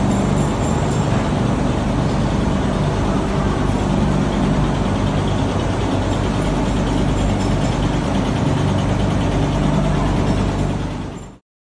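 Paper coating machine running, a steady mechanical drone with a low hum, fading out near the end.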